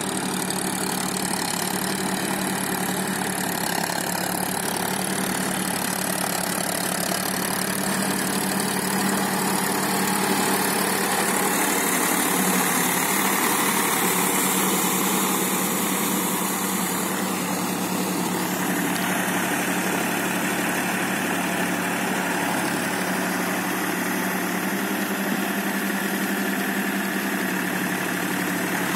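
Powertrac tractor's diesel engine running steadily under load as it drives a rotavator through wet mud, getting slightly louder around the middle.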